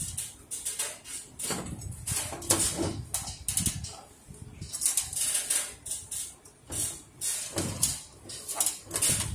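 Handling noise of a copier fuser's cleaning web roll and its sheet-metal bracket: irregular clicks, knocks and rubbing as the roll is worked into the frame.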